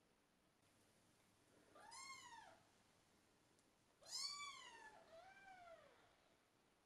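British Shorthair cat meowing three times, each a high call that rises and falls: one about two seconds in, then two back to back a couple of seconds later.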